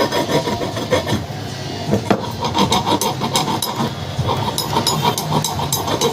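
Hand work on the parts of a cooler motor during a bearing change: irregular scraping and rubbing, broken by many short taps and clicks of a tool.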